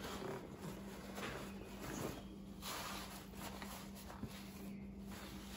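Faint rubbing of a cloth shop towel wiped over the outboard motor's powerhead and cowling to clean off spilled fuel, coming in soft swells over a steady low hum, with one small click about four seconds in.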